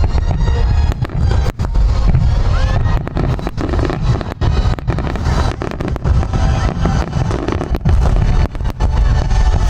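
Aerial fireworks bursting in quick succession: deep booms and sharp cracks one after another, with a whistling rise about two seconds in.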